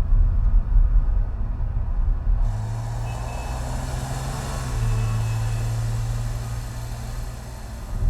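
Vehicle driving noise from a film soundtrack played over home-theatre speakers: a deep low rumble, joined about two and a half seconds in by a broad road-and-traffic wash with a steady low hum, which fades back near the end.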